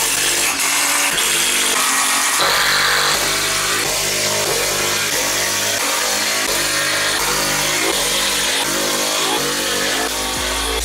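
Background music with a regular beat, mixed with a cordless impact driver driving screws into plywood boards.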